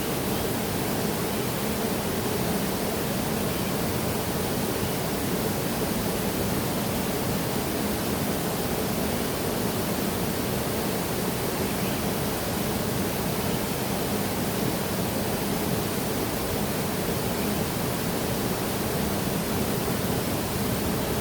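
Waterfall: water falling and rushing in a steady, unbroken roar of white noise, with no change over the whole stretch.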